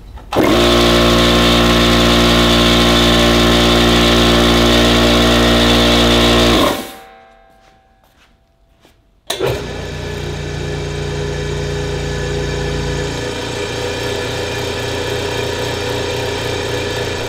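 A traditional piston air compressor on a red upright tank runs loud and steady for about six seconds, metered at about 85 dB, then spins down. After a short pause the Eastwood Elite QST 30/60 scroll compressor starts and runs with a much quieter, smoother hum, metered at about 65 dB.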